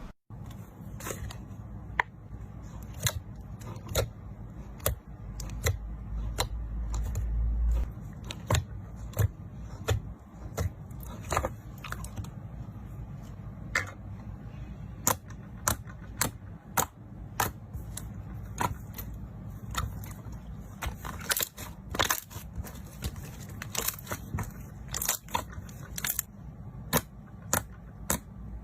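Slime being worked by hand, with sharp clicking pops of trapped air bubbles at irregular intervals, roughly one or two a second, and a low rumble of handling a few seconds in.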